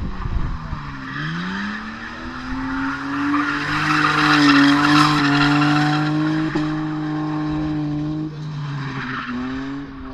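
Car engine held at high revs while the car drifts, with tyres skidding on loose, dusty ground. The revs dip about a second in, climb and hold, drop briefly near the end, then rise again; the skid noise is loudest midway.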